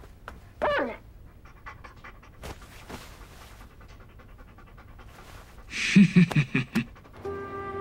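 Dog panting in a quick run of breathy pulses near the end, after a short whining cry just under a second in and faint sniffing sounds. Soft music begins just before the end.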